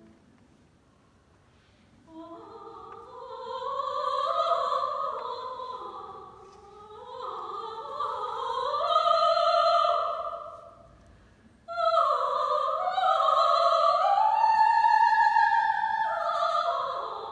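A woman singing a classical vocal line with vibrato, with little or no accompaniment. It enters about two seconds in, and there is a short break in the phrase about eleven seconds in before the voice comes back higher.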